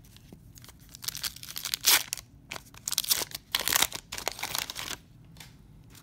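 Paper wrapper of a 1991 Donruss baseball card wax pack being torn open by hand and crinkled, in a string of rustling bursts starting about a second in and stopping about a second before the end, loudest around two seconds in and again around three and a half to four seconds in.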